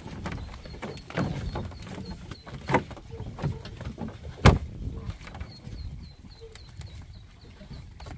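Ducklings peeping in a run of short, high chirps, about three a second, over scattered knocks and rustling. One sharp knock about halfway through is the loudest sound.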